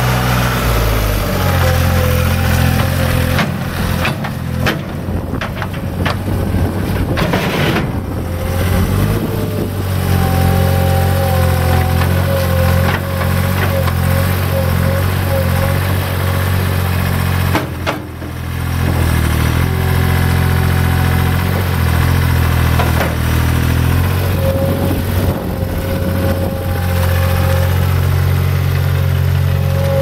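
2004 Gehl SL4640 Turbo skid steer's 62 hp Deutz three-cylinder diesel running as the machine drives and works its loader arms, the engine note shifting with load. A thin steady whine comes and goes over it.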